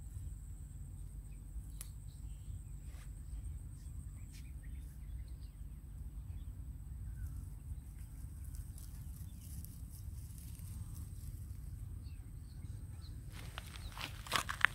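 Quiet outdoor ambience: a low steady rumble with a thin, steady high-pitched tone above it. Near the end, footsteps rustle and crunch through grass.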